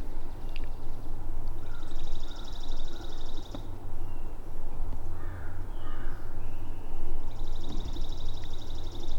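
A small songbird's rapid, even, high trill, sung twice, about two seconds each time, over a steady low rumble.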